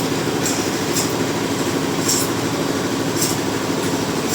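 Machinery running steadily with a constant low hum, overlaid by short high hissing bursts that come at uneven intervals about once a second.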